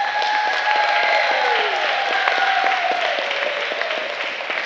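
An audience applauding, dense clapping with voices cheering over it in long held and falling calls.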